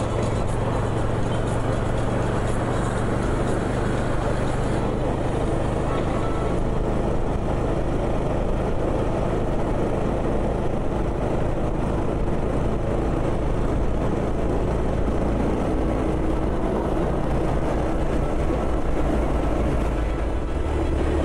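Steady road noise from a vehicle travelling at highway speed: engine hum with tyre and wind noise. The sound shifts about five seconds in, losing some of its hiss.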